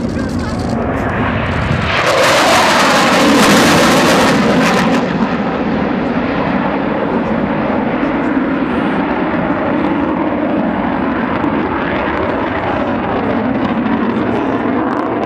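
Panavia Tornado GR4 jet with twin RB199 turbofans making a low pass. Its noise rises to a harsh, rushing peak from about two to five seconds in, then carries on as steady jet noise.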